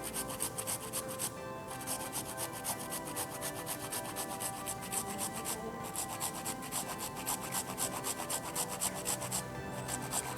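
Kencur (aromatic ginger) rhizome being grated on a hand grater: rapid, regular rasping strokes with three brief pauses.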